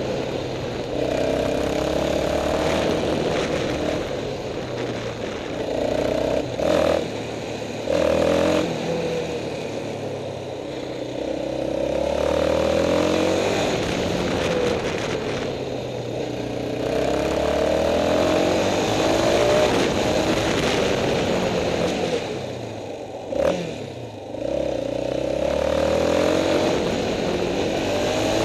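Yamaha Raptor 350 ATV's single-cylinder four-stroke engine, heard from on board, revving up and falling back again and again as it is ridden through the bends, with a few brief dips when the throttle is shut off.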